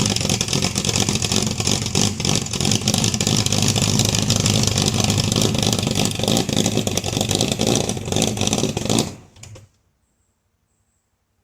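1971 Dodge Dart's 318 V8 engine running steadily and loudly, then cutting off about nine seconds in.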